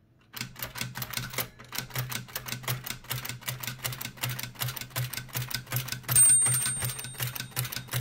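Toshiba BW-3112 Japanese typewriter mechanism clicking rapidly as the carriage is stepped along, about five clicks a second. About six seconds in, a high ring sounds, the carriage's margin bell. The clicking goes on past the bell because the machine has only a bell trip and no line lock.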